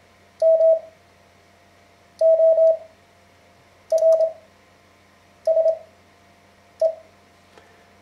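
Morse code sidetone beeping out the word MORSE, keyed with a paddle, at 20 words-per-minute character speed with 5 words-per-minute Farnsworth spacing. Five quick clusters of dits and dahs on one steady mid-pitched tone (M, O, R, S, E), each separated by a pause of over a second.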